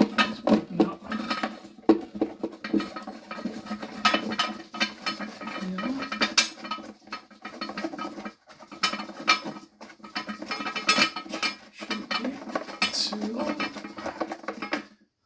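Hard plastic and metal toilet cistern parts clicking and clattering in an irregular run of knocks as they are handled and worked loose to remove the flush syphon.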